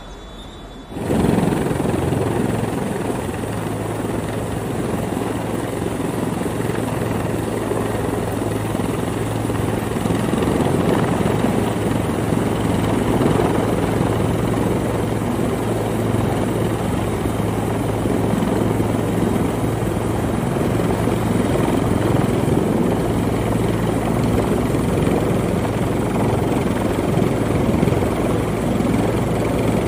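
Hovering rescue helicopter's rotor and engine noise with a steady low hum, starting abruptly about a second in and running on evenly.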